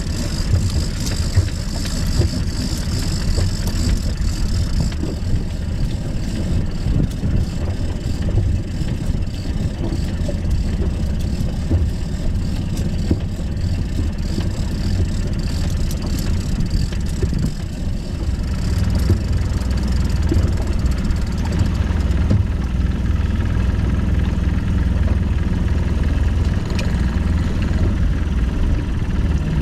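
Boat engine running steadily at trolling speed.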